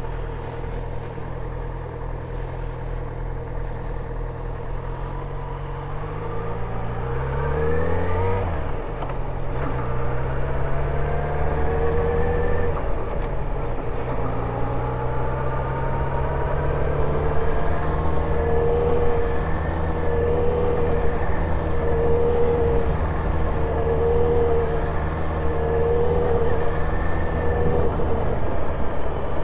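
Motorcycle engine running under way, revving up about eight seconds in and dropping at a gear change, then holding a steady pitch. From about two-thirds through, a tone pulses about once a second.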